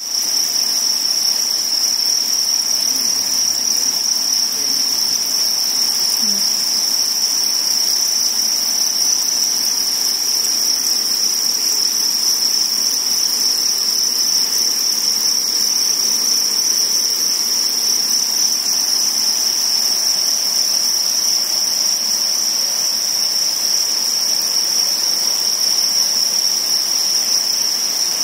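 A dense chorus of hundreds of farmed crickets chirping together, merging into one steady, unbroken high-pitched trill.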